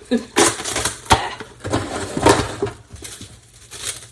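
Plastic wrap being handled and crinkled, with several sharp crackles and clicks at uneven times.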